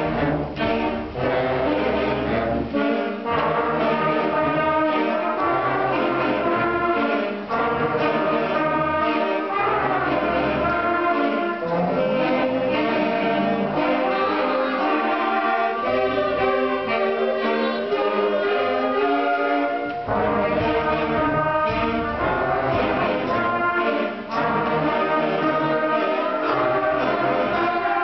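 Middle school concert band playing a piece: woodwinds and brass together in held chords and moving lines, with low bass notes dropping in and out.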